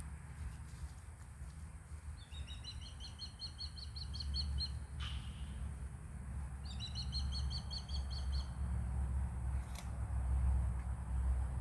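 A songbird sings two trills of rapid, evenly repeated high notes, each trill lasting about two seconds, over a steady low rumble. Two faint sharp clicks fall between and after the trills.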